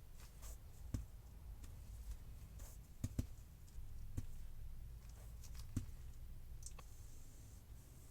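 Slow, irregular typing on a laser projection keyboard: single sharp clicks spaced a second or more apart, two of them close together a little past three seconds in, over a faint low hum.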